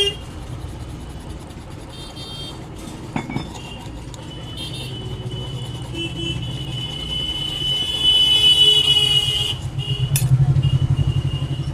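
A hand file rubbing on a mixer grinder's motor bush to clean off the grime that had jammed it. A steady high-pitched tone runs over a low hum, swelling about six to nine seconds in, and quick rhythmic pulses follow near the end.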